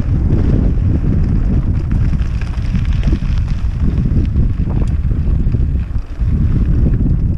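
Heavy wind buffeting on a helmet-mounted camera's microphone, a dense low rumble, as a hardtail mountain bike rolls along a loose gravel track. It drops away briefly about six seconds in.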